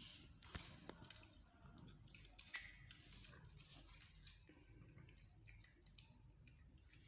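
Faint scattered clicks and smacks of cats eating cheese from a crinkly foil wrapper on a tiled floor.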